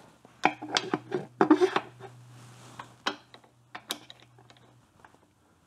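Metal clicks and clinks of a motorcycle's shifter linkage parts being handled and fitted. There is a quick cluster in the first two seconds, then a few single ticks, over a faint steady low hum.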